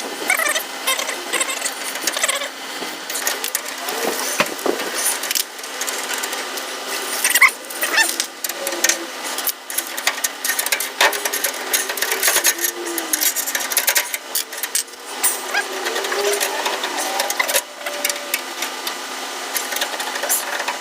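Hand tools working on the front leaf-spring shackle bolts: rapid, uneven clicking and rattling of metal on metal as the bolts are loosened.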